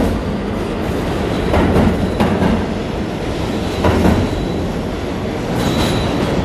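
NYC subway train moving past close along the platform: a steady rumble with a few sharp wheel clacks over the rail joints, and a faint high squeal near the end.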